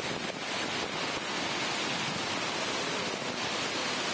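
Ocean surf breaking and washing, heard as a steady, even rush of water.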